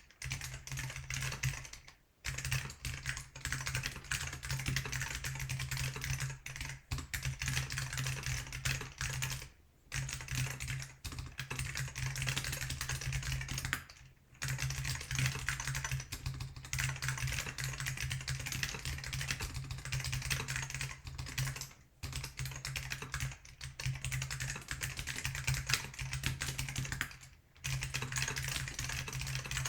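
Fast typing on a GeonWorks F1-8X mechanical keyboard with Alps SKCM Salmon switches lubed with RO-59, on a 1.5 mm carbon-fibre plate and fitted with IBM 5140 keycaps. A dense run of key clacks is broken by short pauses about five times.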